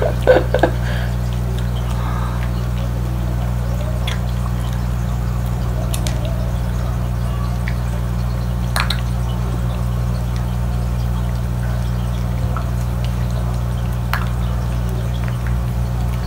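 A steady low hum, with a few faint isolated clicks from a Shiba puppy's plastic treat-dispensing ball and the kibble spilling out of it.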